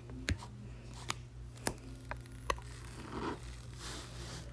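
Cut adhesive vinyl being pulled off its backing sheet: about four sharp ticks, roughly one a second, then a short soft rustle about three seconds in.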